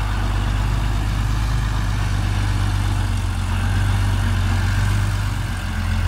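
Isuzu ten-wheel dump truck's diesel engine idling with a steady low hum.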